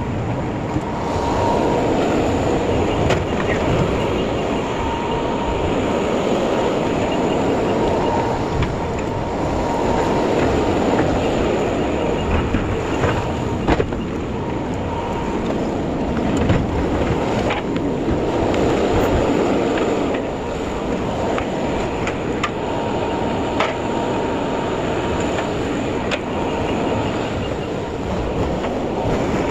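Loaded truck driving: steady road and engine rumble with scattered sharp rattles and clicks.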